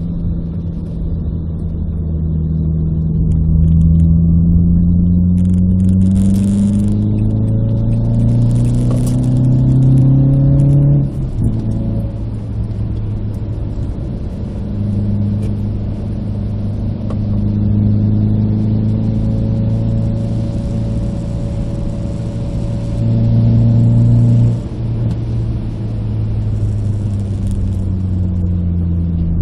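Renault Clio RS 172's 2.0-litre four-cylinder engine heard from inside the cabin, revs climbing steadily under acceleration for about ten seconds and then dropping suddenly. It runs steadily for a while, climbs again and drops suddenly a second time a few seconds before the end, then settles.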